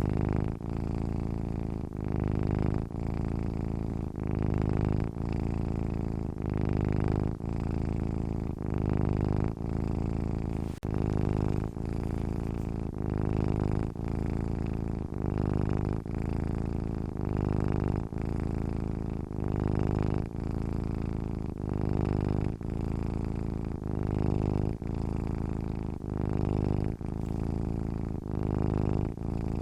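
Domestic cat purring steadily and deeply, with a short break in the purr about every second or two as it breathes in and out.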